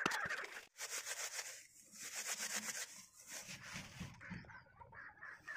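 A series of faint, rough rubbing strokes, roughly one a second, with a hissy rasp.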